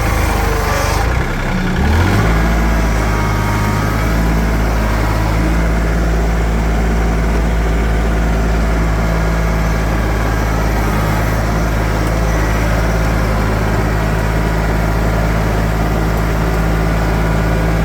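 New Holland TC33-D compact tractor's three-cylinder diesel engine running as the tractor is driven. It revs up about two seconds in, then runs steadily.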